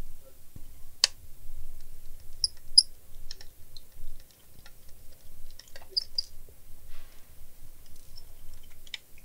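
Scattered small clicks and ticks of plastic and small screws being handled as a laptop is taken apart, with one sharp click about a second in, over a low hum.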